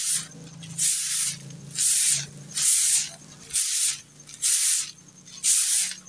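Soft grass broom sweeping a dusty concrete floor: rhythmic swishing strokes, about one a second.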